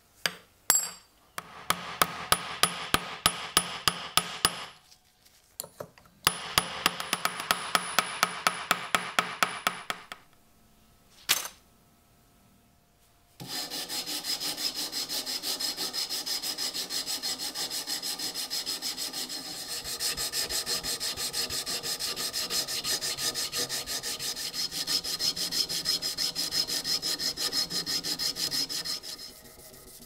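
An abrasive strip is pulled back and forth, shoe-shine style, across a steel pocket-knife part clamped in a vise: fast, even rubbing strokes from a little before halfway until shortly before the end. Before that come a few clicks and two shorter spells of quick scraping strokes, split by brief pauses.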